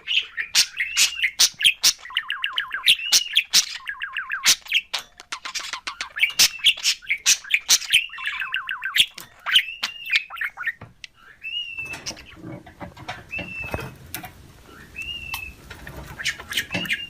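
Pet budgerigar warbling and chattering: quick clicks, short chirps and fast trilling runs. After about twelve seconds the chatter thins to occasional single chirps over a low background noise.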